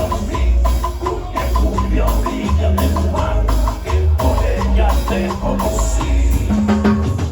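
Latin dance music with a heavy bass line and a steady percussion pattern of about four light clicks a second.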